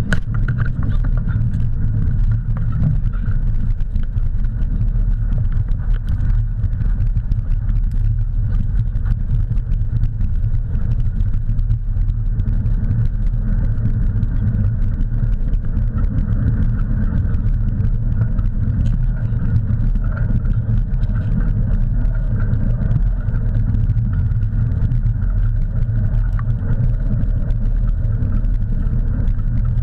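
Steady low rumble of wind on the microphone and the wheels of a dog-drawn rig rolling at speed over a dirt trail.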